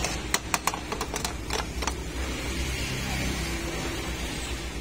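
A quick run of light clicks and taps in the first two seconds, from hands working the wires and sliding an insulating sleeve over a twisted wire joint inside a rice cooker's plastic housing. After that only a steady low hum is left.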